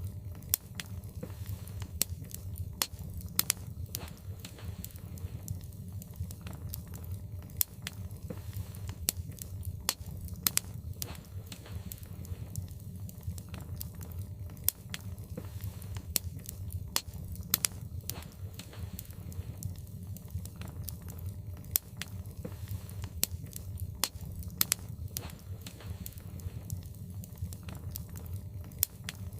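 Wood fire in a fireplace crackling, with frequent irregular pops and snaps, a few sharper than the rest, over a steady low rumble.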